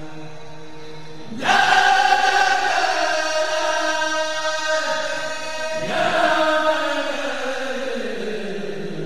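Voices chanting in long held notes: a loud new phrase starts about a second and a half in, and another around six seconds in slides slowly down in pitch.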